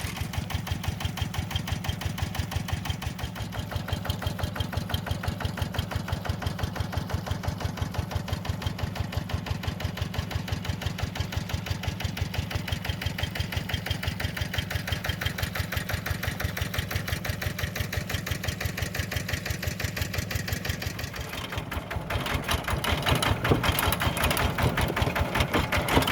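A small engine running at idle: a steady, fast, even chugging that grows a little louder over the last few seconds.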